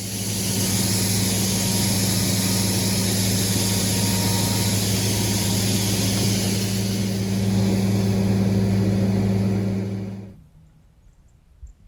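Farm machinery engine running steadily with a low drone, cutting off abruptly about ten seconds in.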